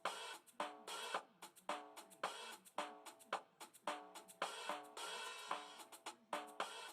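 Background music: a steady drum-kit beat with cymbals, under sustained pitched notes.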